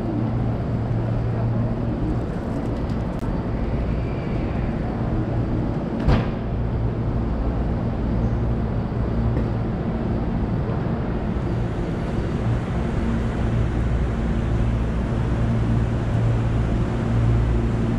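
Steady low electrical hum from a stopped Hankyu electric train's onboard equipment, with a single sharp click about six seconds in.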